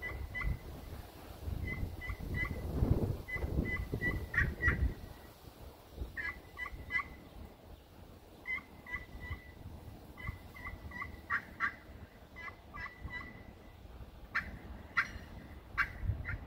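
Zebrawood turkey pot call played by hand, the striker drawn across the friction surface to give runs of short, high turkey notes with brief gaps between runs. Near the end the notes come sharper and louder. A low rumble sits under the notes a few seconds in.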